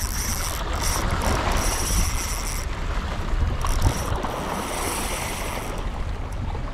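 Wind buffeting the microphone over waves lapping, with two stretches of a high whirring, each about two and a half seconds long, from a fishing reel while a hooked fish is played on a bent rod.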